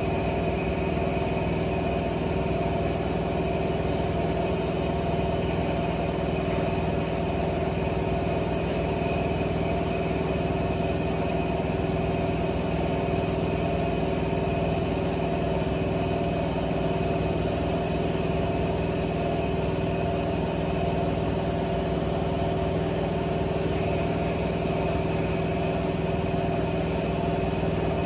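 AEG 7000 Series Lavamat washing machine running with a steady motor hum and whine that holds at one pitch and level throughout.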